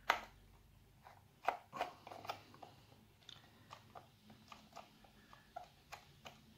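Small screwdriver backing a screw out of a plastic Bluetooth speaker case: a scatter of faint clicks and crackles, a few louder ones in the first couple of seconds, then smaller ticks.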